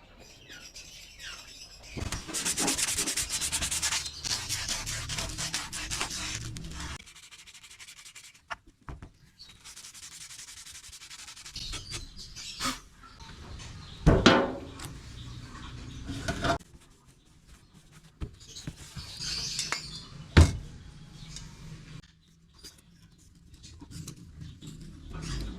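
Rubbing and rasping of hand work on metal, in a long stretch near the start and shorter passes later, broken by two sharp knocks.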